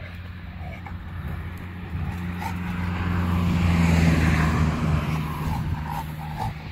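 A vehicle passing by: a broad rushing sound that swells to its loudest about four seconds in, then fades.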